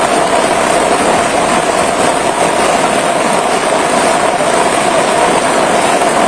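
Steady rushing noise of a fast-flowing flood current through a street, mixed with heavy rain.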